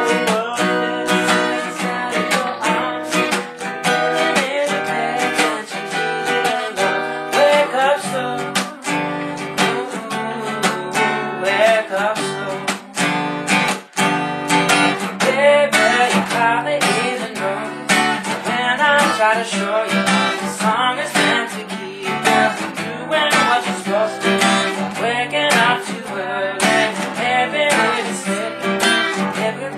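Two acoustic guitars strummed together in a steady rhythm, playing chords.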